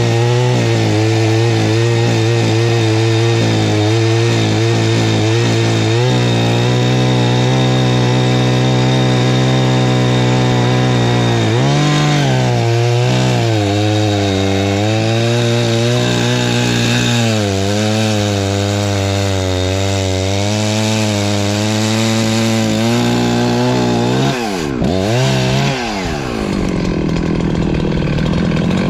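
84cc Perla Barb two-stroke chainsaw running hard while cutting firewood, its engine note dipping and recovering as the chain bites into the wood. Near the end the revs drop sharply and climb back up a couple of times.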